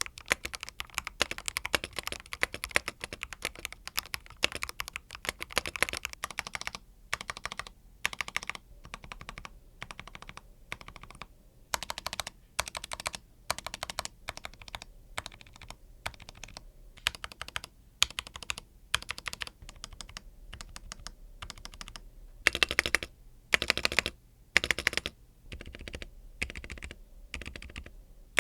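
Typing on a Rakk Hanan mechanical keyboard with Akko CS Crystal linear switches and stock PBT keycaps. It starts with fast continuous keystrokes for about six seconds, then goes on in short runs of keystrokes separated by brief pauses, with a few louder runs about two-thirds of the way through.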